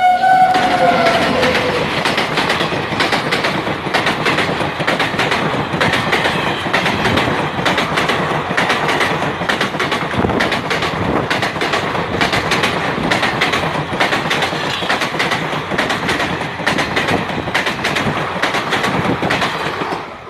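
Indian Railways train passing close at speed, wheels clattering steadily over rail joints and crossover points. Its horn ends about a second in, falling slightly in pitch.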